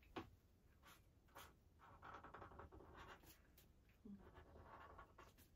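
Faint scratching of a black felt-tip marker drawing a smile over a pencil line on paper, in two short stretches of strokes.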